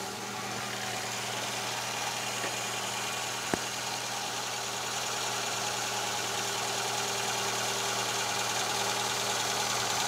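Fiat Palio 1.8 engine idling steadily with its timing covers off and no accessory belt fitted, the new timing belt running over its pulleys and tensioner; the tensioner sits slightly above its mark, too tight. A single sharp click about three and a half seconds in.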